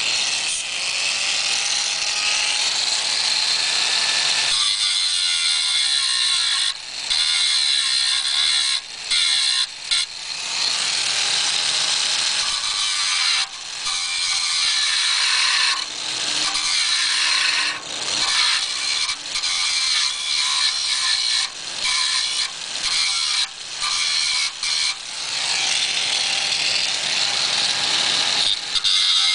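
Electric angle grinder grinding down the broken-off, thread-mangled end of a seat bolt so its nut can be undone. It is a loud, high grinding with about a dozen brief dips in level.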